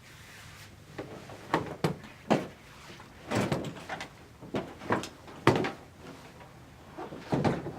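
Knocks and clunks as a massage chair backrest is lowered into the seat brackets and locked into place. About a dozen separate knocks come at uneven intervals, the loudest about five and a half seconds in.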